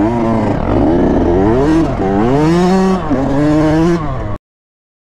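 Dirt bike engine on the move, revving up and down about once a second. The sound cuts off suddenly near the end.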